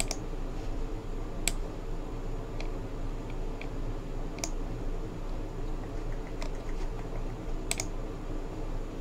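Computer keyboard keys clicked sparsely and irregularly, about eight clicks spread across the stretch, over a steady low hum.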